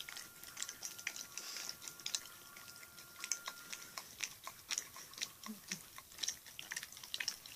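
A dog licking and smacking at peanut butter stuck in its mouth, its tongue flicking in and out: a run of short, irregular wet mouth clicks, several a second.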